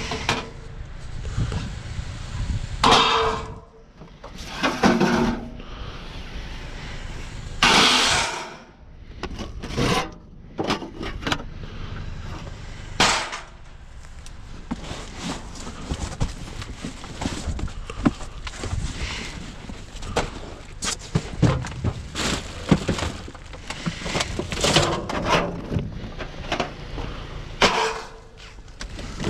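Trash being rummaged and shifted inside a metal dumpster: cardboard, plastic bags and wooden pallet boards rustling, scraping and clattering, with irregular knocks and crunches. Several louder crashes come in the first third.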